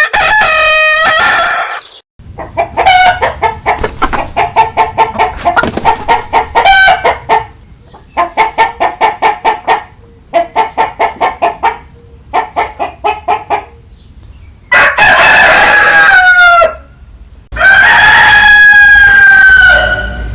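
A rooster crowing: one crow at the start, then several runs of fast clucking at about five a second, then two long crows near the end.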